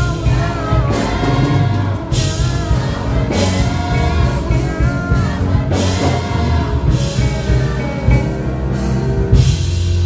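Live gospel music: a male lead singer sings into a handheld microphone, with the choir singing behind him over a band with electric guitar, keyboard, heavy bass and repeated drum and cymbal hits.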